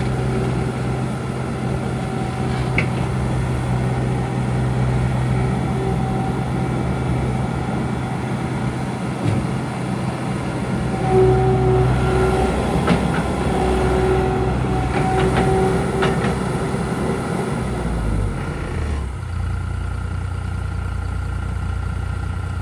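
John Deere 250 skid steer loader's diesel engine running steadily at speed, with a whining tone that comes and goes. About 19 seconds in it drops to a lower, steady idle.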